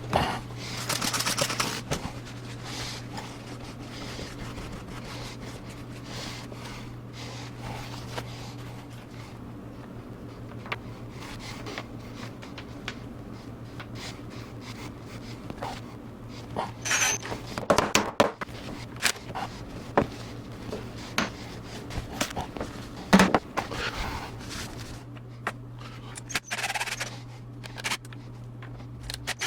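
Light clicks, knocks and scrapes from hand work with small wooden glued segments and clamps, over a steady low hum. The knocks come thickest from about 17 to 24 seconds in, and short hissing rushes come right at the start and again a little before the end.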